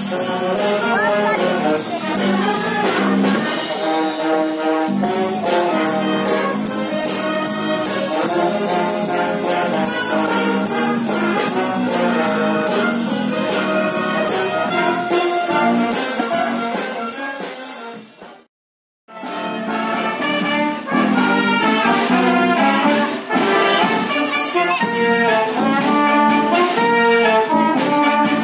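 A wind band of brass and saxophones, with trombones, tubas and clarinets, playing a piece together. About two-thirds of the way in the music fades and breaks off for half a second, then the band is heard playing again.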